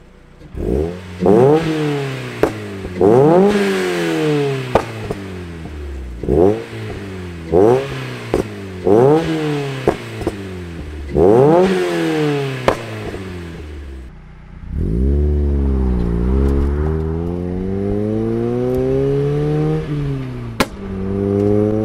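NB2 Mazda Miata's 1.8-litre four-cylinder, breathing through a full aftermarket exhaust (header, midpipe, axle-back), is blipped hard about seven times, each rev falling away with sharp pops and crackles from a pops-and-bangs tune. Then, heard from inside the cabin, the engine pulls up through the revs under acceleration, with two upshifts.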